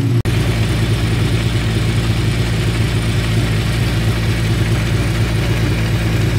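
Radical SR8's Hayabusa-based 2.7-litre V8 idling steadily.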